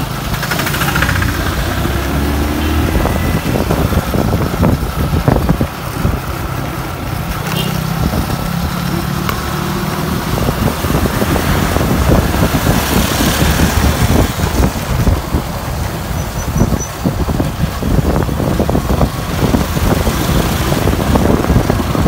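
Motorcycles riding along a brick-paved road: engines running steadily, with wind noise on the microphone and tyre rattle over the paving.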